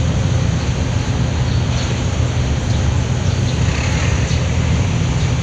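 Car ferry's diesel engine running steadily under way: an even low hum with a constant hiss over it.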